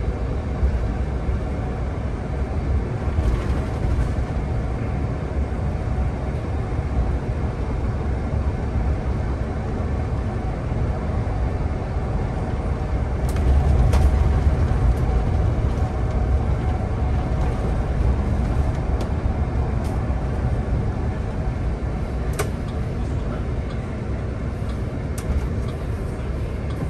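Solaris Urbino 18 articulated city bus driving, heard from on board: a steady low engine and road rumble that grows louder for a few seconds around the middle, with a few short sharp clicks and knocks.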